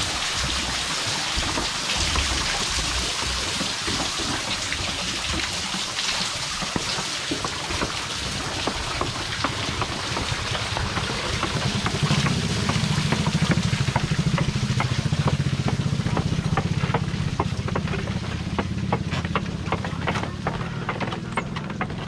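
Water pouring and splashing down a well shaft from the clay pots of a bull-driven Persian wheel. About halfway through, a low, rhythmic drone from the turning wooden wheel joins, with clicking that gets denser near the end.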